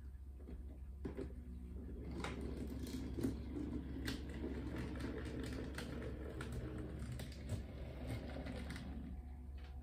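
Model railroad locomotive running along the track, its small motor and gearing humming steadily, with irregular clicks as the wheels cross rail joints and turnout frogs.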